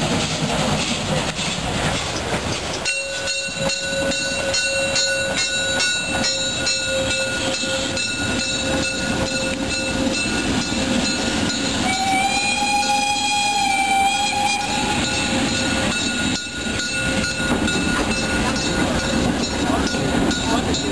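Steam-hauled passenger coaches rolling past on jointed track, wheels clicking over the rail joints and squealing steadily on the curve from a few seconds in. A steam whistle sounds once, for about three seconds, about two-thirds of the way through.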